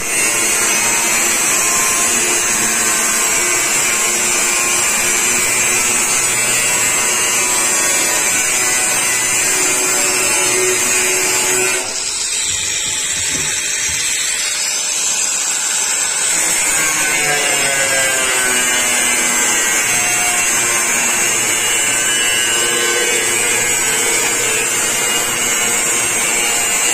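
Electric angle grinder with a cut-off disc cutting through the rim of a steel oil drum: a steady, loud, high whine of the disc grinding metal. About halfway through it eases for a few seconds while the grinder is lifted off the drum, then the whine rises again as the disc goes back into the cut.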